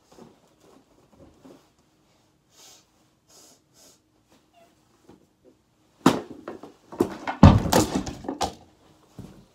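A folding tray table knocked over, crashing down with a loud run of thumps and clatter about six seconds in, the heaviest hit about a second and a half later. Soft knocks and faint rustles come before it.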